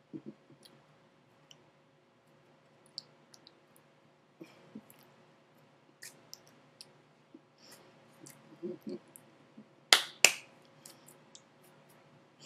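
Scattered small clicks and taps over a faint steady hum, with two sharp loud knocks close together about ten seconds in.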